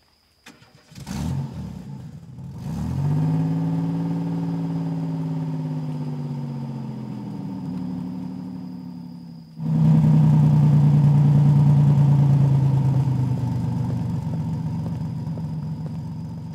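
A car engine starts about a second in and pulls away, its pitch rising and then slowly falling. It cuts off suddenly partway through. A louder, low, steady drone of dark background music takes over and slowly fades.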